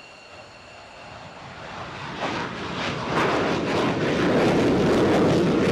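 F-15 Eagle's twin Pratt & Whitney F100 turbofans at full afterburner on takeoff. The jet noise grows louder over the first three seconds as the aircraft climbs past, then stays loud with a ragged crackle.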